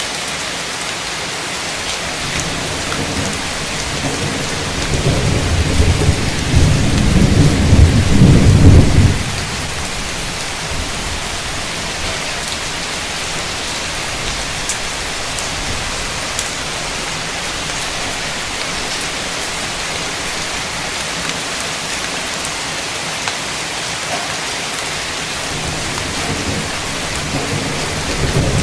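Heavy, steady rain with a roll of thunder that builds from about four seconds in, peaks and stops abruptly at about nine seconds; another rumble of thunder begins near the end.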